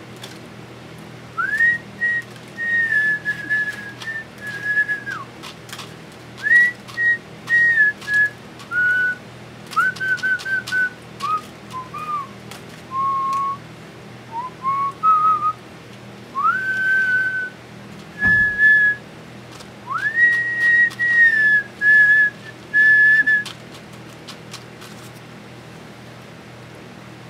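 A person whistling a tune in clear single notes, with phrases that slide up into their first note; it stops a few seconds before the end. There is a soft thud about two-thirds of the way through.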